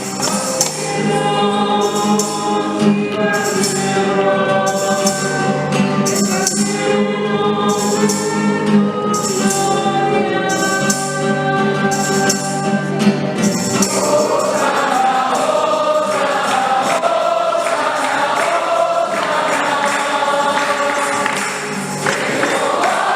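Guatemalan church choir singing a hymn with accompaniment. A steady high percussion beat runs through the first half, and the voices change to a fuller, wavering texture a little past halfway.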